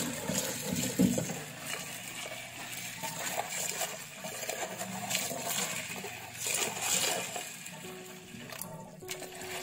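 Tap water running into a plastic colander bowl of mung beans while a whisk stirs them, with the beans rattling and small clicks against the bowl.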